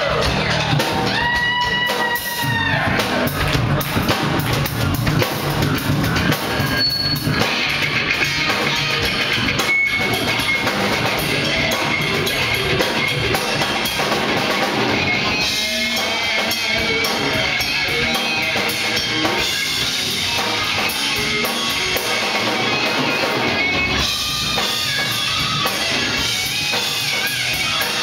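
Live rock band playing loud, with a full drum kit and electric guitars.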